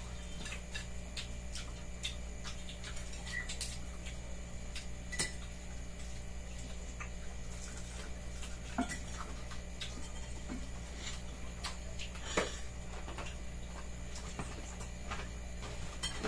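Spoons and forks clinking and scraping on plates while people eat: scattered light clicks, with a few sharper clinks about five, nine and twelve seconds in, over a steady low hum.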